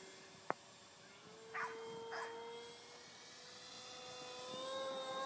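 Brushless electric motor and propeller of a small RC aerobatic airplane whining faintly in flight, the pitch stepping up about a second in as it speeds up and then holding steady. Two short noisy bursts come about a second and a half and two seconds in.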